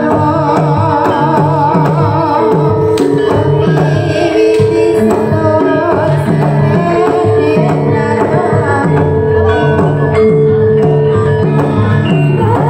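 Javanese gamelan ensemble playing, with kendhang hand drums beating a brisk, steady rhythm under held metallophone notes.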